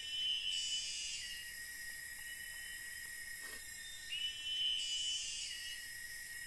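Insects in the forest making a steady high shrill drone, with a repeating call phrase that starts just before the beginning and returns about four seconds in.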